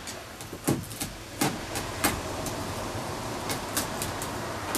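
Irregular sharp taps and scratches of a cat pawing and clawing at a sisal-rope scratching post and the string toy hanging from it, the loudest in the first two seconds, over a steady background hiss.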